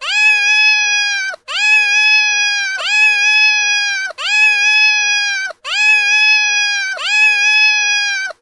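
A cat's meow: the same long, high call repeated six times in an even loop, each about a second and a half, rising at the start, held steady, then dropping off at the end.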